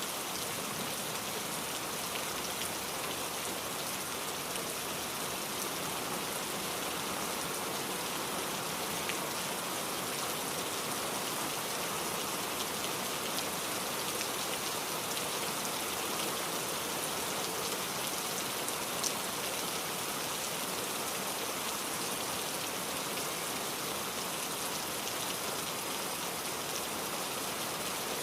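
Heavy rain falling steadily, an even hiss of rain with many small drop impacts on the surface.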